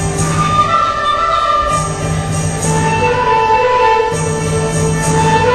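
Chinese traditional orchestra music: a held melody over a low bass part that comes in and drops out about every second.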